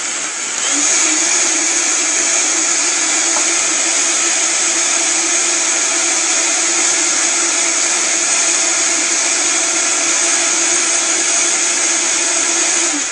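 Vitamix blender running at high speed, blending a green smoothie of leafy greens, cucumber, celery, lemon, banana and water. Its pitch rises over the first second as it speeds up, then it runs steady and noisy, and it is shut off right at the end.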